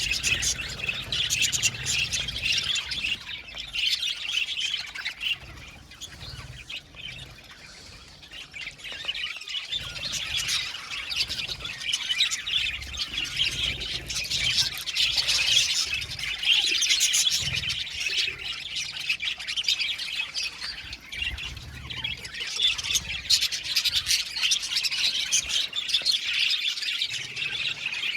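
A flock of budgerigars chirping, warbling and squawking in constant overlapping chatter. The chatter eases off for a few seconds about a quarter of the way in.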